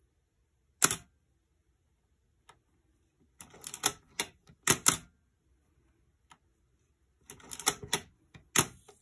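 Nikon F3 35mm SLR body worked by hand: a single sharp mechanical click about a second in, then two bursts of rapid clicks and snaps, in the middle and near the end, from the shutter being fired and the film-advance lever being wound.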